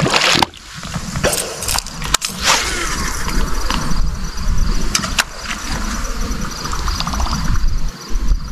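Scattered knocks, clicks and rustles as an angler handles a fish and his gear, with a loud rushing burst at the very start. Insects, likely crickets, chirp steadily in the background.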